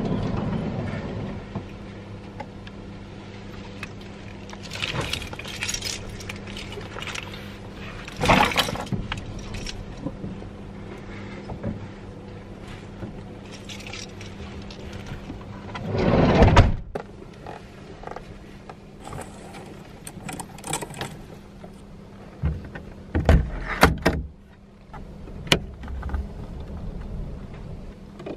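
Gear being handled and moved about inside a small camper van: rustling, knocks and a few louder thumps, over a steady low hum.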